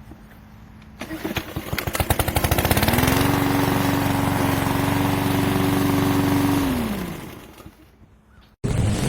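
PowerSmart 144cc OHV single-cylinder push-mower engine starting up. About a second in it fires in rapid beats that speed up, then settles into a steady run for several seconds. It then slows and stops, and a different loud sound cuts in near the end.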